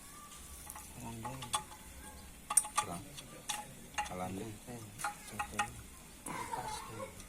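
Irregular sharp clicks and clinks, several a second at times, over a light hiss, with brief faint voice-like calls in the background.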